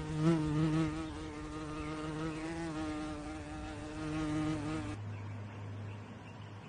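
Flying insect buzzing: a steady, slightly wavering drone that stops about five seconds in, leaving only a faint low hum.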